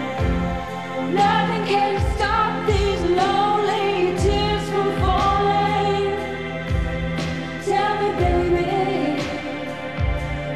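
Female lead vocal singing a slow soft-rock ballad over sustained synthesizer string chords and a slow, soft drum beat; the voice comes in about a second in after a short gap.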